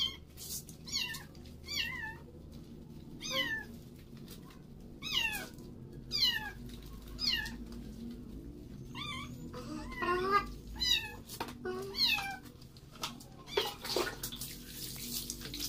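A three-month-old Persian kitten meowing over and over while being shampooed, about a dozen short, high-pitched meows roughly one a second, each bending in pitch. Water splashes near the end.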